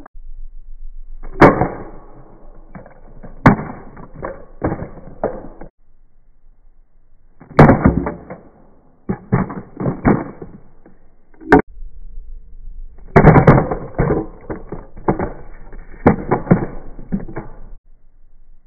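Movi handheld camera gimbal dropped onto asphalt again and again: each drop is a sharp hit followed by a run of clattering and scraping as it tumbles and settles, in three main bursts with short quiet gaps between.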